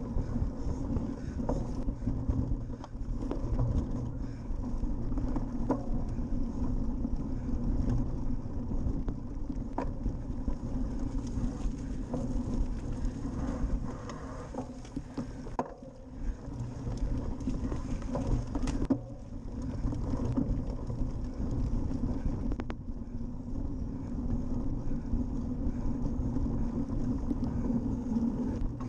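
Rumble and wind rush on the microphone of an action camera riding on a cyclocross bicycle, with frequent small knocks and rattles as the bike runs over bumpy dirt and grass.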